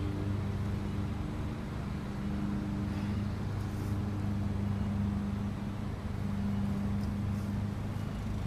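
A steady low motor hum with a constant pitch.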